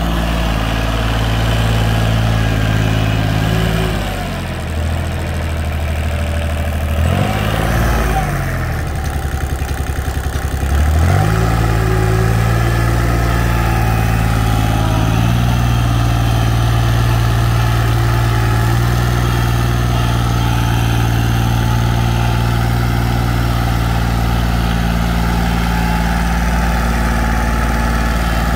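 Old compact farm tractor's small diesel engine running as it crawls over rough dirt. Partway through, the engine slows and chugs with a slow, even beat for several seconds, then picks back up and runs steadily again.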